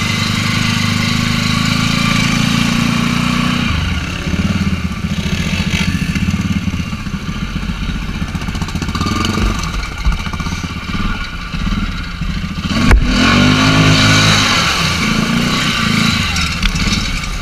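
Can-Am Outlander 450's single-cylinder engine running under throttle as the ATV wades through muddy river water, with water splashing. About thirteen seconds in there is a sharp knock, and the engine revs up and drops back.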